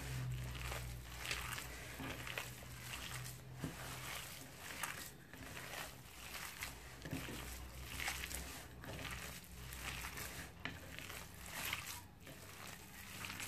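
Hands squishing and kneading raw minced meat mixed with chopped onion, spices and cornflour in a bowl: wet squelches in an uneven rhythm, roughly one a second.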